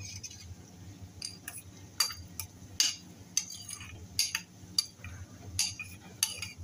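Metal spoon stirring thick yogurt chutney in a stainless-steel bowl. It clinks and scrapes against the bowl about a dozen times at an uneven pace.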